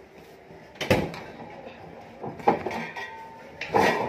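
Dirty dishes and trays clattering on a pushed room-service trolley, with three loud rattling knocks.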